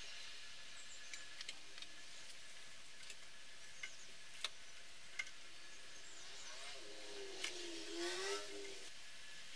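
Thin stainless steel wire being wound tightly around a wooden hammer handle: a few sharp ticks and clicks as the wire is pulled and seats, and about seven seconds in a short wavering squeak, over a faint steady hiss.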